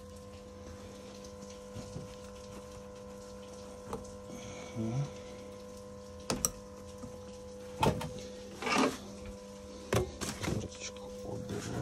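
Hand tools and small metal parts clicking and rattling in scattered bursts as bolts and fittings are undone in a car's engine bay, over a steady hum. The clicks get more frequent in the second half.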